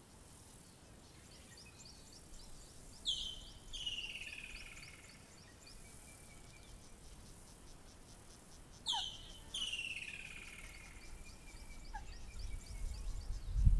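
Woodland kingfisher calling twice, about six seconds apart: each call is a sharp high note followed by a long trill that slides down in pitch. A faint rapid high ticking runs between the calls, and a low rumble builds near the end.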